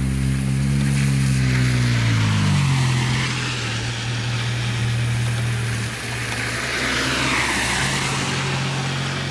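A motor engine running, its pitch sliding down about two and a half seconds in and then holding steady, over a steady hiss of rain on the water.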